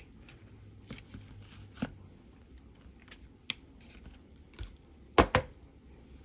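A sharp snip of wire cutters through thin silver-plated copper wire right at the start. Then come scattered small clicks and rustles of wire and tools being handled, and two louder knocks in quick succession a little after five seconds in.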